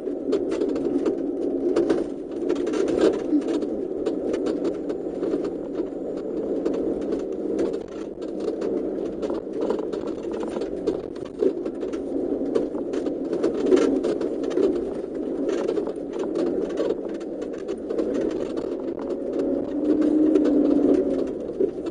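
Off-road 4x4 vehicle driving over rough ground: a steady low engine drone with frequent rattles and knocks.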